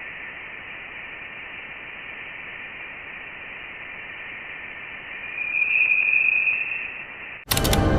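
NASA spacecraft radio or plasma-wave data converted to sound: a steady, thin hiss with a brighter whistling tone that swells about two-thirds of the way in. Near the end a sudden loud, full sound cuts in.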